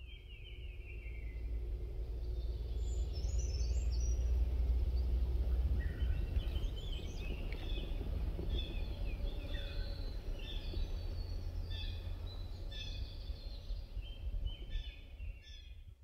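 Wild birds calling: a falling whistled note at the start, then many short high chirps and trills from about six seconds on. Under them runs a steady low rumble that swells over the first few seconds.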